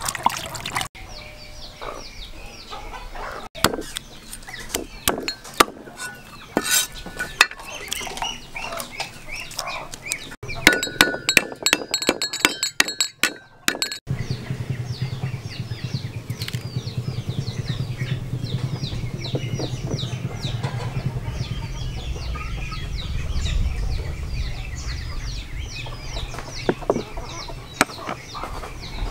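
Kitchen handling sounds: hands turning and rubbing a raw whole chicken in a plastic basin, with sharp clicks and clinks of small ceramic bowls and spoons in the first half. Behind it runs a steady chatter of quick, high bird or fowl calls, densest in the second half.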